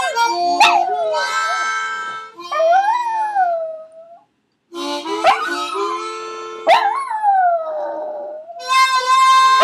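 A dog howling along to music: long howls that rise and fall in pitch, taking turns with steady held chords from an instrument.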